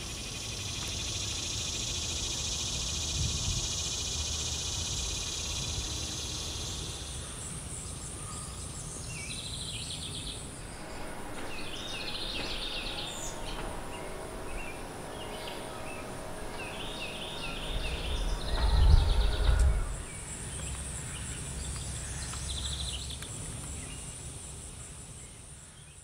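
Summer outdoor ambience: a steady high insect drone for the first seven seconds or so, then scattered bird chirps. A brief loud low rumble comes about nineteen seconds in, and the sound fades out at the end.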